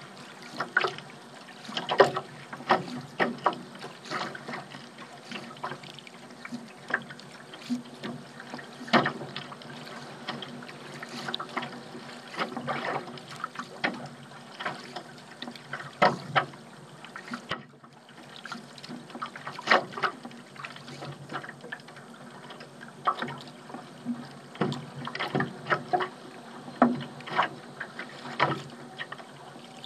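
Water splashing and slapping against a small paddled craft as it is paddled through open water, in many irregular sharp splashes.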